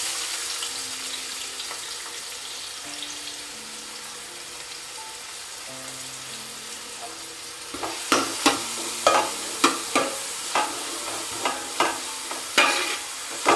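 Chopped shallots sizzling in hot oil in a pan, the sizzle loudest at first and then easing. From about eight seconds in, a spoon knocks and scrapes against the pan as they are stirred, about two strokes a second.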